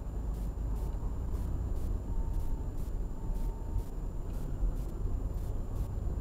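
Car driving slowly, heard from inside the cabin: a steady low rumble of engine and tyre noise, with a faint steady high-pitched whine over it.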